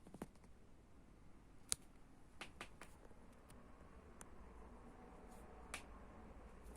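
Near silence with a few faint, scattered clicks and taps, the sharpest one a little under two seconds in.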